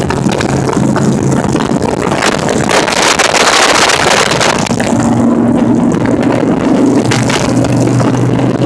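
Motorcycle engine running steadily at highway speed, with wind rushing over the microphone that grows loudest about three seconds in.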